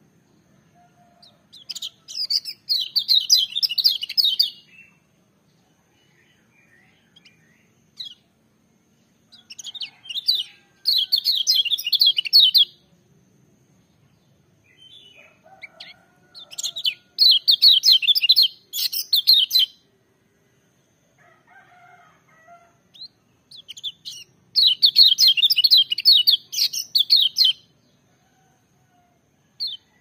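A kecial kuning, a small yellow white-eye, singing loudly in fast, warbling bursts of two to three seconds. There are four bursts, several seconds apart, with faint chirps between them.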